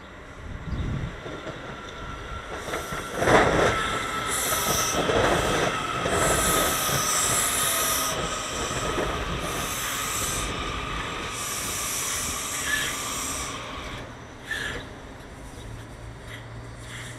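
A Washington Metro Kawasaki 7000-series railcar train pulling into the station and braking: steady rail noise, a thin high squeal, a whine falling in pitch as it slows, and repeated bursts of high hissing. It is loudest about three seconds in and quietens after about fourteen seconds as the train slows to a stop, leaving a low hum.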